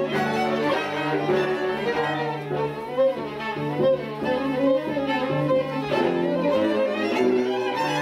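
String quartet of two violins, viola and cello playing live, several bowed parts moving over a long-held low note.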